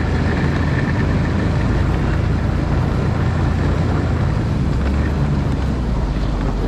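Snowmobile engine running steadily: a low, even drone.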